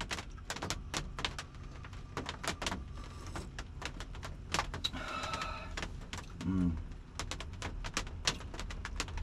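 Irregular sharp ticks and clicks, several a second, over a low steady hum.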